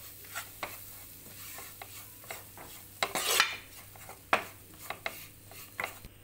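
A metal spoon stirring and scraping flour into melted butter in a frying pan as a roux cooks, over a low, steady sizzle. Scattered sharp scrapes and clicks of the spoon against the pan, loudest about three seconds in.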